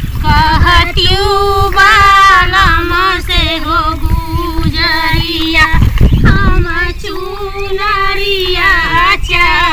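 Women's voices singing a kajari, a rainy-season folk song, in a wavering, ornamented melody over a held note, with a low rumble about six seconds in.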